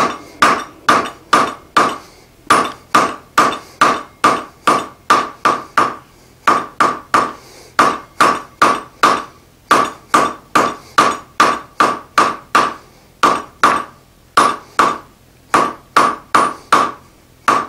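Hand hammer striking a red-hot bar on the horn of the anvil, drawing it out with steady blows about two or three a second and brief pauses between runs; each blow rings with the same clear pitch.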